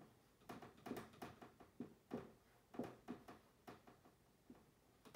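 Dry-erase marker writing on a whiteboard: an irregular run of faint short strokes and taps.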